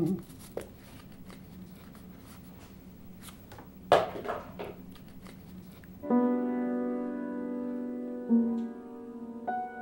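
Faint crinkling and clicking of a small paper packet being handled over a steady low hum, with one sharper, louder sound about four seconds in. About six seconds in, solo piano starts playing slow, held chords.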